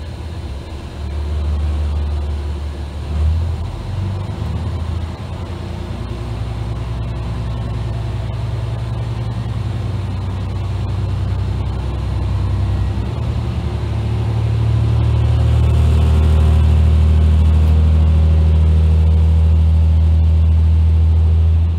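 Diesel railcar running along the line, a steady low engine drone with rail and wheel noise, growing louder over the last several seconds and dropping off sharply at the end.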